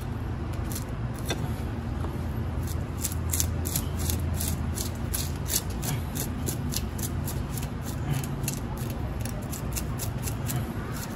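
Kitchen knife scraping the scales off an opaleye: quick, sharp scraping strokes, about two or three a second, starting a couple of seconds in, over a steady low rumble.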